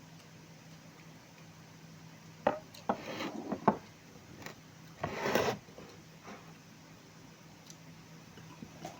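Tableware handled during a meal of rice and sambal: a few sharp clinks and knocks about two and a half to four seconds in, then a short scraping rub about five seconds in.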